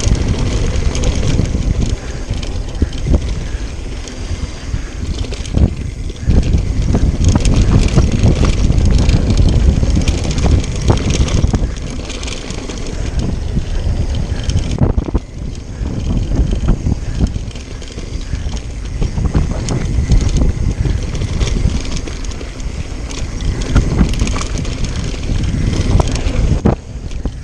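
Mountain bike descending a fast dirt trail: wind rushing over the microphone and tyres rumbling on dirt, with frequent clatter and knocks from the bike over bumps. It surges louder and eases with speed.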